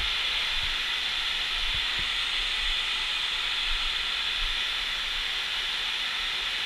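Heavy artificial rain falling from a large-scale rainfall simulator's overhead nozzles: a steady, even hiss of a downpour.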